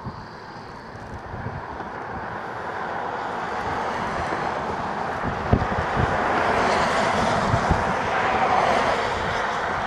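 Tyre noise from a vehicle on the wet bridge road, a rush that swells over several seconds and eases near the end, with wind buffeting the microphone.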